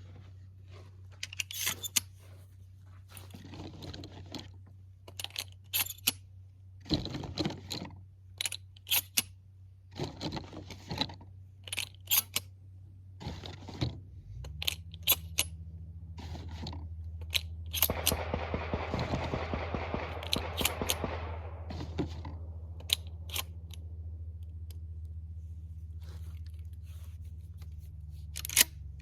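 Irregular sharp clicks and knocks throughout, none far louder than nearby speech. A low steady hum grows stronger about halfway through, and a hiss rises and fades about two-thirds of the way in.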